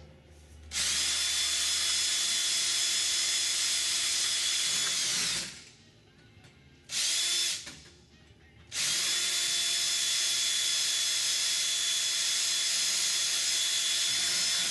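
Cordless drill running at a steady speed as it drills out holes in clecoed aluminium spar parts to final rivet size. It goes in three runs: a long one, a brief one about seven seconds in, then another long one.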